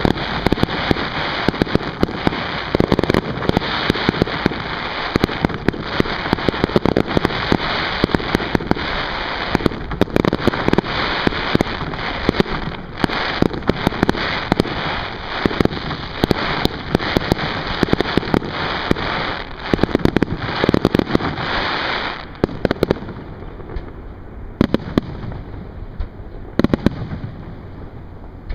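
Fireworks display: a dense run of rapid bangs and pops over a steady hiss, thinning out about 22 seconds in to scattered bangs.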